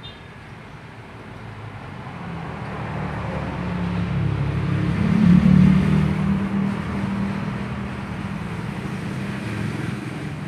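A motor vehicle's engine running close by, growing louder over the first few seconds, loudest about five seconds in, then easing back a little but still running.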